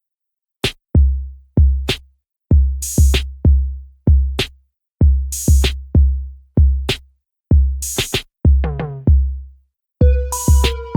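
Electronic music: a drum-machine beat of deep, decaying kick drums and sharp hits, with a cymbal crash about every two and a half seconds. A falling pitched drum fill comes near nine seconds, and sustained synth chords come in near the end.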